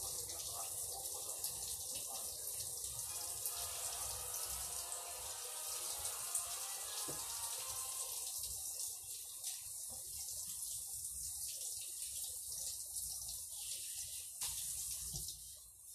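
Pan of fish-soup broth boiling on a gas hob: a steady, watery bubbling hiss that fades near the end.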